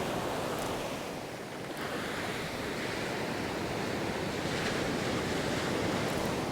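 Surf breaking and washing up a beach, a steady rush that eases briefly and swells again about two seconds in, with some wind buffeting the microphone.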